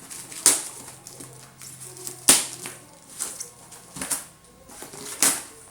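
Cardboard shipping box and its packing being handled and opened: a series of about five sharp crackling rustles and taps, the loudest about two seconds in.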